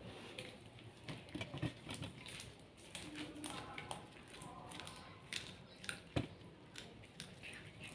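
Kitten chewing and crunching a piece of fish on brown paper: faint, irregular clicks and crackles of chewing, with the paper rustling and a sharper knock about six seconds in.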